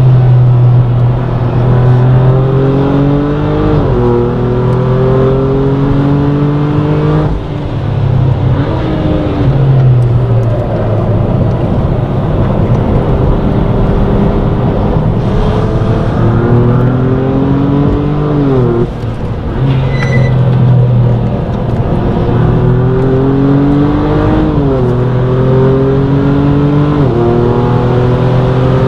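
BMW turbocharged straight-six heard from inside the cabin, accelerating hard through the gears on track. Its pitch climbs and drops sharply at each upshift, about 4, 7 and 10 seconds in. It eases off and winds down about 18 seconds in, then pulls through two more upshifts.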